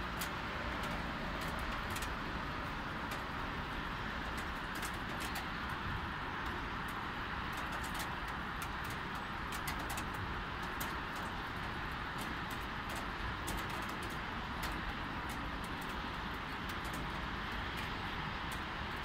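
Light rain falling, with irregular sharp ticks of drops striking close by, over a steady hum of distant city traffic.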